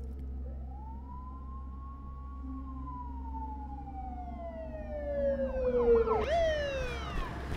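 Emergency vehicle siren wailing: one slow rise and a long fall, then louder, with several overlapping wails about six seconds in, over a low steady rumble.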